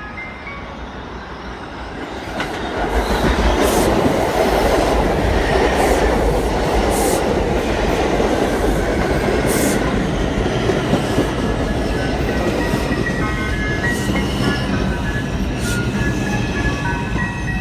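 R142 subway train running along the track, its wheels rumbling and clicking over the rail joints; it gets louder about two and a half seconds in. From about twelve seconds in, short stepped tones from the train's electric propulsion sound over the rumble.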